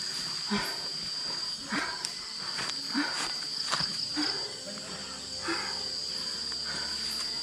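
Steady high-pitched chirring of night insects, with irregular rustling footsteps through grass and undergrowth.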